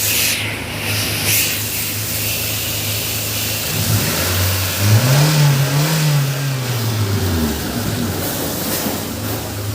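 Hyundai Santro Xing's four-cylinder petrol engine running steadily. About four seconds in it speeds up, then eases back to its earlier note about three seconds later. It runs smoothly, the misfire cured by a new camshaft position sensor.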